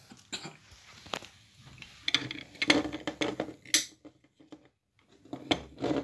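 Handling noises: a string of clicks and clattering knocks as hard objects are moved and set down on a table. About four seconds in, the sound drops out completely for a moment.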